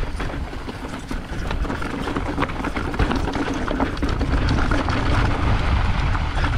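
Mountain bike riding over rough singletrack, heard from a bike- or rider-mounted action camera: a constant heavy rumble of wind and trail noise on the microphone, with frequent sharp clicks and rattles from the bike over the ground.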